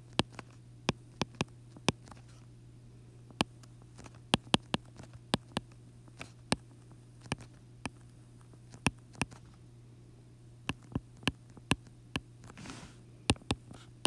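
Stylus tip tapping and ticking on an iPad's glass screen during handwriting: sharp, irregular clicks, a few a second with short pauses, over a steady low electrical hum.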